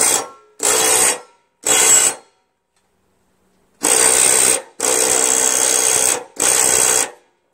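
Cordless drill driving a 15/16 socket on a mower blade bolt, run in six short bursts, the longest in the second half. The bolt does not break loose.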